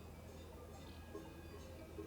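Cowbells on grazing cattle ringing faintly and irregularly at a distance, several metallic tones overlapping, over a steady low wind rumble.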